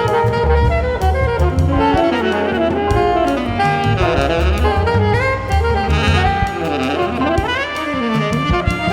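Small jazz band playing an instrumental passage: saxophone lines over acoustic bass, piano and drum kit, with sliding, bent notes in the second half.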